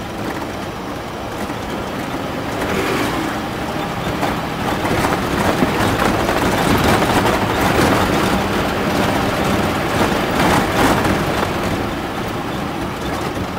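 Bedford MJ/MK 4x4 truck driving on a rough dirt road, heard from inside the cab: the engine runs steadily under continuous road noise and rattling. The sound grows louder from a few seconds in, stays up through the middle and eases near the end.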